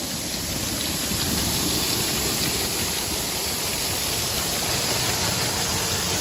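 Steady, even rushing noise with no distinct tones.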